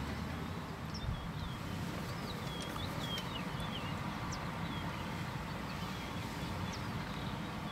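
Steady rushing of the fast-flowing Mara River in flood, with birds calling in short, high, wavy chirps over it.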